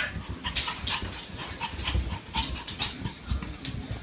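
An animal panting in quick, uneven breaths, with soft low thumps underneath.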